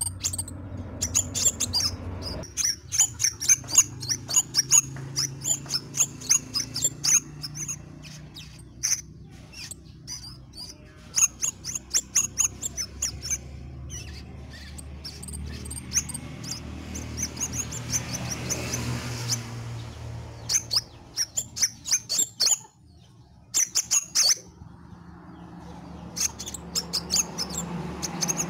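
Scarlet minivet singing in bursts of rapid, sharp, high chirps, each run lasting a second or two and repeated many times, over a steady low background hum.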